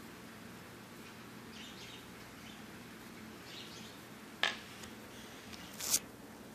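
Pet parakeet chirping faintly a few times in the background. About four and a half seconds in comes a sharp click, and near the end a brief, louder scraping rustle of handling close to the microphone.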